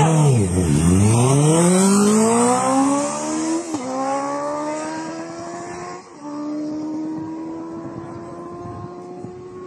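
Electric motorcycles launching from a standing start: their motors' whine dips, then climbs steadily in pitch as they accelerate away, with two short breaks about three and a half and six seconds in. The sound grows fainter as they pull away.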